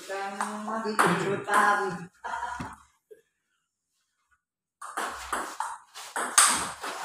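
Table tennis ball being struck and bouncing in a rally: a quick run of sharp clicks off the paddles and table, starting near the end, the loudest a hard hit. Voices are heard in the first couple of seconds, before the rally.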